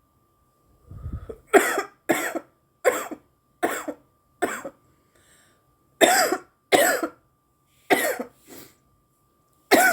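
A woman coughing hard on joint smoke: a fit of about nine sharp coughs, one every half second to a second, with a brief pause about halfway through.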